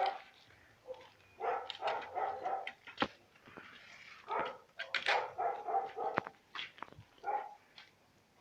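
Dog barking repeatedly, in runs of several quick barks, with a couple of sharp clicks in between.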